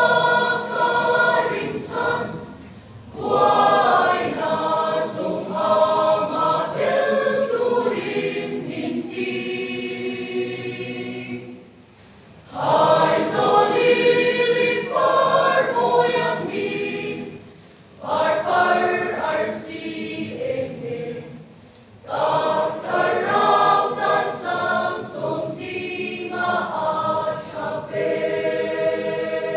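Mixed church choir of men's and women's voices singing a hymn, in phrases broken by short pauses about every four to nine seconds.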